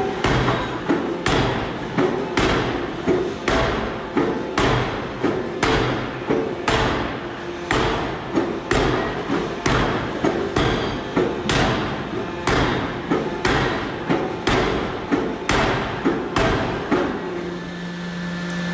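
A production machine striking repeatedly in an even rhythm, about two blows a second, over continuous machine noise, the blows stopping near the end.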